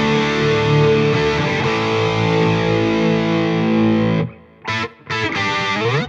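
Electric guitar through a BluGuitar Amp 1 with a crunch preset from a Line 6 HX Effects: a lightly overdriven chord struck and left ringing for about four seconds, then muted. Several short, chopped chords follow near the end.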